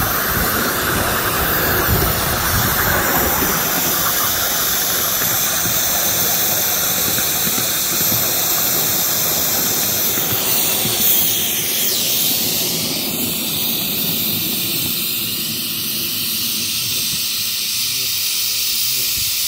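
5-inch gauge live-steam GWR 15xx pannier tank locomotive running along the track with steam hissing. About twelve seconds in, the running rumble falls away and a steady steam hiss is left as the engine stands.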